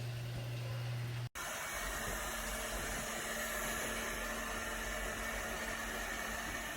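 Robot vacuum running, a steady whir from its suction motor and brushes. About a second in the sound drops out for an instant, then carries on brighter and steady.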